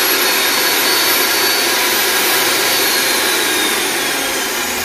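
Makita LC1230 slow-speed metal cutting saw with a 305 mm carbide-tipped blade running free with no load: a steady, even motor whine. About three seconds in the whine begins to fall as the trigger is let go and the blade spins down.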